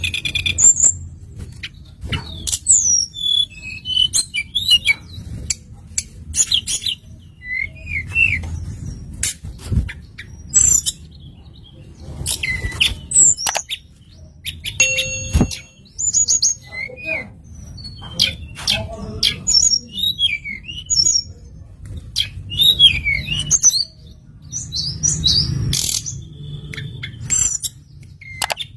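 Tledekan songbird singing, a varied run of short high chirps, quick rising and falling whistles and brief trills in irregular phrases, played as a lure call to set other birds singing. Sharp clicks and a low rumble sit under the song.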